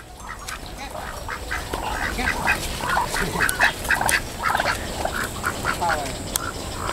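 Ducks quacking, a quick run of many short repeated calls.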